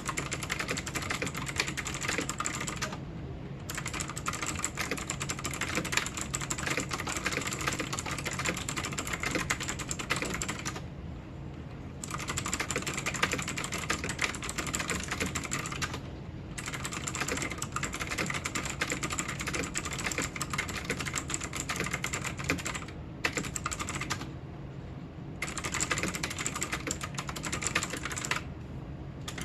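Continuous fast typing on a Zenics Titan optical keyboard: dense runs of keystroke clicks, broken by several short pauses of about a second.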